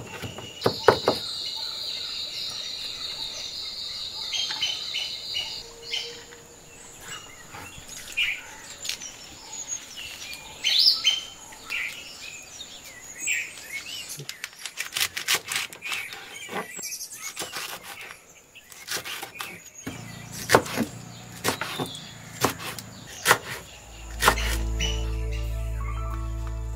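Large kitchen knife chopping vegetables on a wooden chopping board, quick knocks in short flurries with pauses between, while small birds chirp and twitter. Background music comes in low and grows louder near the end.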